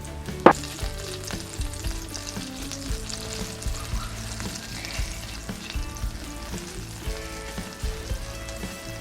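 Thin slices of potato, carrot or beet deep-frying in hot oil, with a steady crackling sizzle. A single sharp clack about half a second in is the loudest sound.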